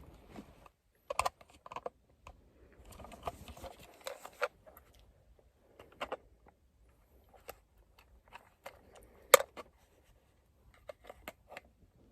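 Plastic interior light cover of a Suzuki Swift Sport being pried at in the roof lining: scattered small clicks and creaks of plastic, with a stretch of scraping about three seconds in and one sharp click, the loudest, about nine seconds in. The cover is not yet coming free.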